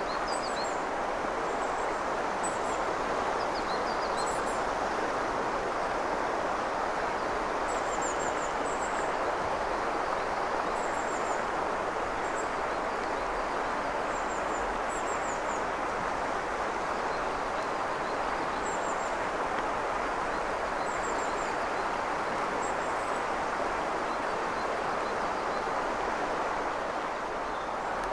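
Steady rush of a shallow mountain river flowing over stones, with brief high bird chirps every second or two.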